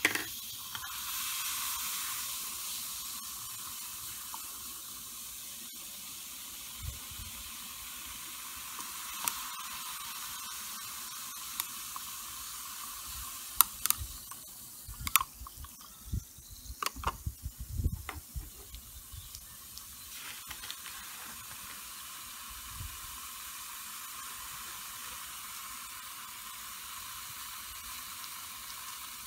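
Steady fizzing hiss of a reacting mixture in a glass beaker, with a glass stirring rod clinking and knocking against the glass several times midway.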